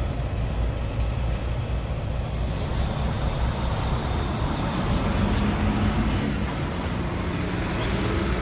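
Scania R tractor unit's diesel engine idling steadily, a low rumble heard close beside the cab.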